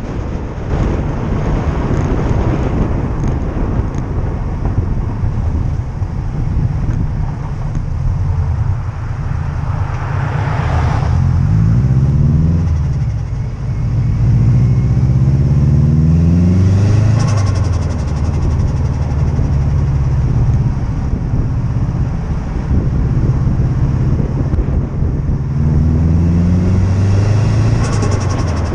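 Subaru Impreza Type R's turbocharged flat-four engine revving up and dropping back several times, with short hissy bursts of turbo flutter as the throttle is lifted.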